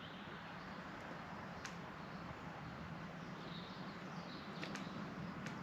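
Faint outdoor woodland ambience: a steady low hiss with a few distant bird chirps and occasional small ticks.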